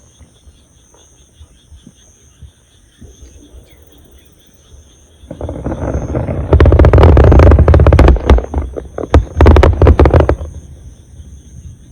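Insects chirping steadily with high pulsing tones. About five seconds in, a loud, distorted rumbling and crackling noise comes in and lasts about five seconds before dying away.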